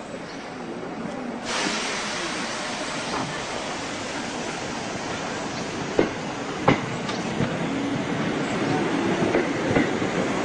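Electric commuter train moving off along the platform, its running noise growing louder as it passes close by, with a few sharp clacks of the wheels over rail joints about six seconds in.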